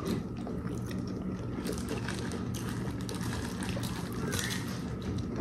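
Faint wet sounds of a saucy seafood boil being eaten by hand, crab legs being pulled apart and chewed, with soft scattered clicks over a low steady hum.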